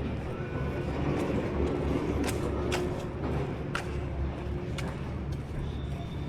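Street ambience: a steady low traffic rumble with a faint held tone and a few sharp ticks scattered through it.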